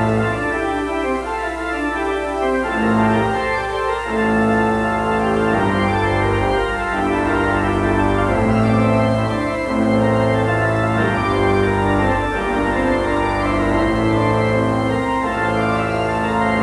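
Church organ playing sustained full chords that change every second or two.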